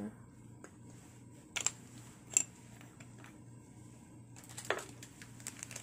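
Kitchen clicks and taps while pepper powder is added to rice-flour batter: two sharp clicks under a second apart, the second the loudest, then from about four and a half seconds a run of light ticks and rustling, over a faint steady hum.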